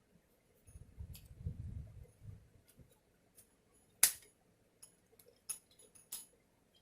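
Handling noise of a small spline roller hand tool being worked on: a low rumbling of parts being pressed and rubbed for a couple of seconds, then one sharp click about four seconds in and a few lighter clicks afterwards.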